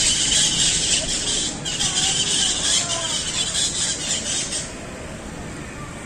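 A flock of parrots (cotorras) screeching in the treetops, a dense, high-pitched chatter that breaks off briefly about a second and a half in and stops abruptly near five seconds in.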